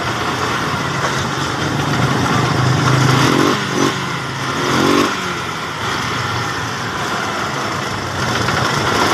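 Motorcycle engine running steadily, a little louder for a few seconds near the middle.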